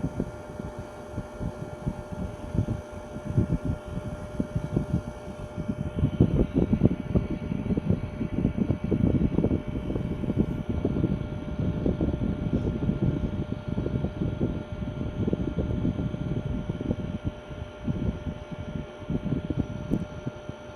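Ceiling fan running, its draft buffeting the microphone in uneven gusts over a thin steady hum; the buffeting grows stronger about six seconds in.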